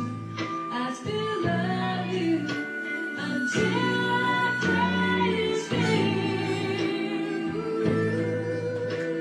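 Harmonica played along with a recorded slow soul ballad that has a singing voice and a stepping bass line, with long held notes.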